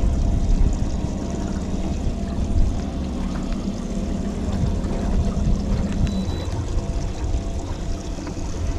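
A small boat moving slowly across calm water: water rushing along the hull over a steady low motor hum, the hum dropping away about six seconds in.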